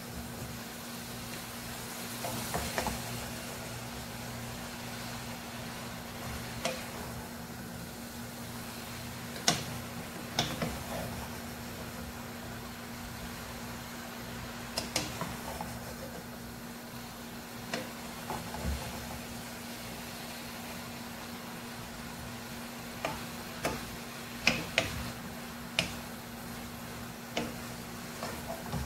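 Two wooden spatulas tossing and stirring rice noodles in a metal pot, knocking and scraping against the pot now and then, with a cluster of knocks near the end. A steady low hum runs underneath.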